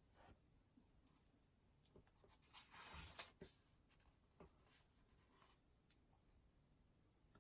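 Faint pen-on-paper writing: light scratching with a few small taps, and a brief louder scratchy rustle about three seconds in.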